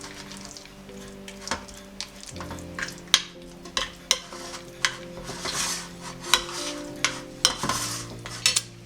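A spoon stirring and scraping in a pot, with irregular clinks and short scrapes, over soft background music with held notes.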